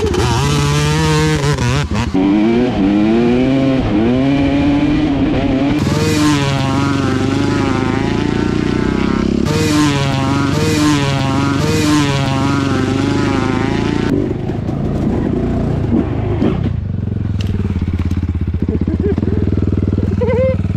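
Enduro dirt bike engines revving up and down over and over, then settling to a lower, steadier running note about two-thirds of the way through.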